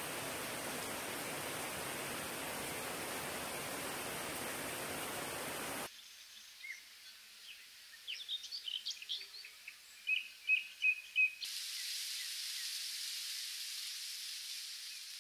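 Small mountain stream cascading over mossy rocks, a steady rushing noise that cuts off suddenly about six seconds in. After that come songbirds in a quiet meadow: scattered short chirps, then four loud repeated notes about ten seconds in, followed by a steady high hiss.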